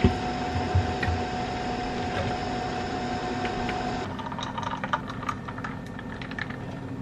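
Capsule espresso machine brewing with a steady humming whir and a single held tone, which stops abruptly about four seconds in. It is followed by light clicks and handling sounds at the counter.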